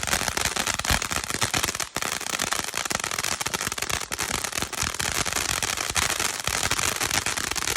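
Psychedelic 500-gram cake firework crackling: a dense, unbroken stream of rapid small pops and hiss.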